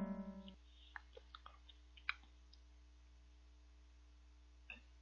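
Mostly near silence: a fading musical tone dies away about half a second in. Then come a quick handful of faint small clicks and taps, and one more click near the end.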